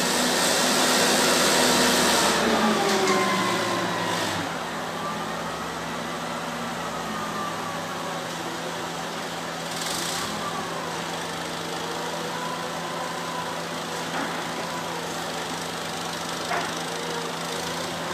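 Forklift engine running, louder for about the first four seconds, then settling to a steady run with a faint whine that rises and falls in pitch.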